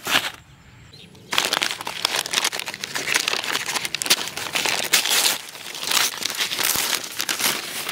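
Brown paper mailer bag crinkling and rustling as hands tear it open and pull it apart, starting about a second in.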